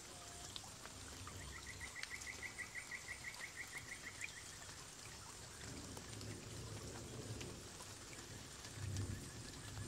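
Faint outdoor forest ambience with a steady hiss. About a second in, a quick trill of some twenty short notes, about seven a second and rising slightly, runs for about three seconds. A low rumble comes in during the second half.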